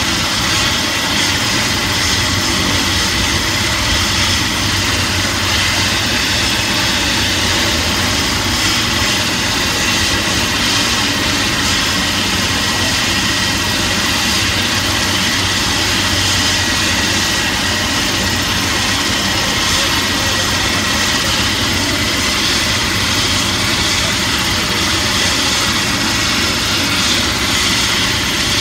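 Helicopter running steadily, its turbine giving a steady high whine over a constant rushing noise.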